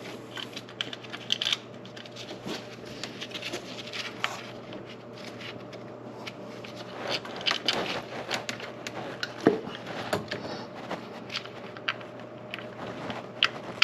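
Scattered light clicks, taps and scrapes of engine parts being handled and fitted into place by hand, a few louder knocks past the middle and near the end, over a steady low hum.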